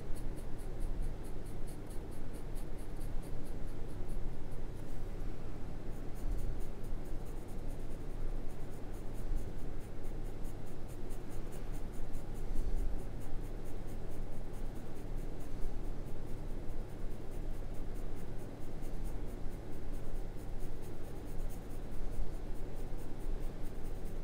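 Graphite pencil shading on drawing paper: a continuous scratchy rasp of quick short strokes.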